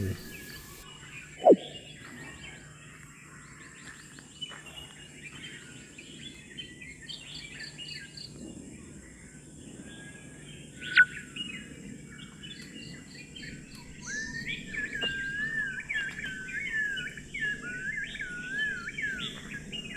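Wild birds chirping and calling in a mixed chorus. From about three quarters of the way through, a wavering whistled song becomes the loudest bird sound. A short loud downward sweep comes just after the start, and a sharp click about halfway through.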